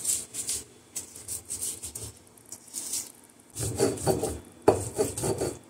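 A stone roller is rubbed back and forth on a sil batta grinding slab, crushing tomato, onion and coriander into chutney in rhythmic scraping strokes, about two to three a second. The strokes grow louder and fuller after about three and a half seconds, with one sharp knock of stone on stone.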